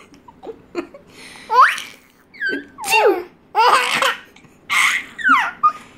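A baby laughing in a run of high-pitched squeals and breathy bursts of laughter, about eight in a row with short pauses between them.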